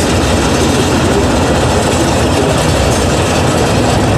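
Tatra 815 6x6 trial truck's diesel engine running steadily and loud under load as the truck crawls over a steep dirt slope.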